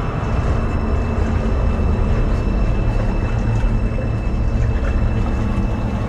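Water rushing through a narrow rock tunnel: a loud, steady, low rumble, with a faint steady high tone over it.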